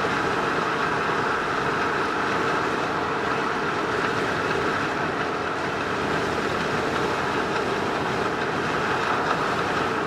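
Steady road and engine noise inside a vehicle's cab while cruising at highway speed, tyres rolling on patched asphalt.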